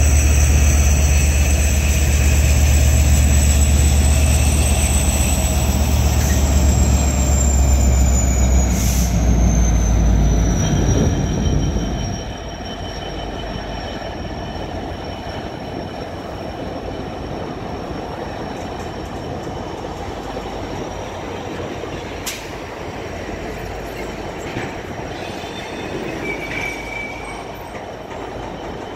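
Canadian Pacific diesel freight locomotives passing with a heavy low rumble that drops away about twelve seconds in. The freight cars then roll by with a steady rumble and a high wheel squeal that falls in pitch.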